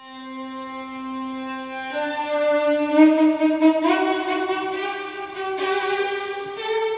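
Opening theme music led by a bowed string instrument, playing slow, long-held notes that step up in pitch twice.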